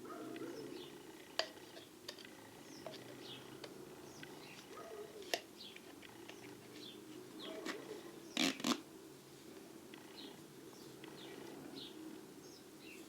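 A few light clinks of small steel lathe tool bits being handled, the loudest a quick double clink about eight seconds in, over faint background bird chirping.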